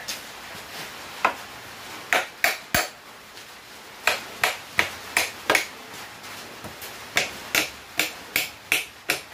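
Hand hammer striking a cold 1/2 inch round steel bar on an anvil: about eighteen sharp metallic taps with a short ring, in small irregular groups of two or three a second. The taps are the bar being marked where it will be bent.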